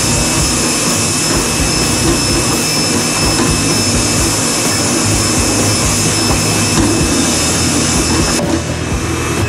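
A pressure washer runs with a steady motor hum while its jet hisses onto an aluminium air cleaner cover. The spray cuts off about eight and a half seconds in.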